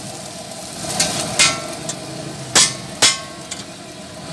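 Metal spatula clanking against a flat steel griddle: four sharp ringing strikes with a couple of lighter taps between them.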